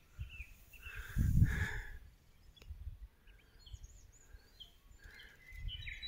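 Garden ambience with scattered short chirps of small birds, growing busier near the end, and a brief low rumble on the microphone about a second in.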